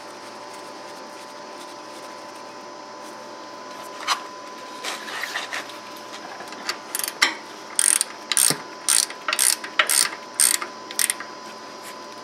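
Ratchet wrench clicking while a hydraulic reservoir drain plug is threaded back in and tightened: one click about four seconds in, then a run of clicks about two a second near the end.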